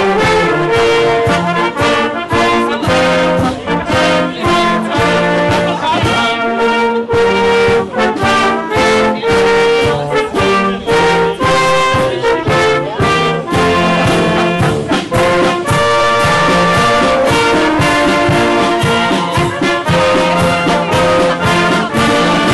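Brass band playing: trumpets, trombones and clarinets over a steady bass drum beat.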